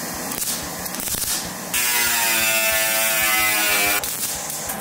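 MIG welder arc welding sheet steel: a steady buzz of about two seconds that starts near the middle and stops suddenly near the end.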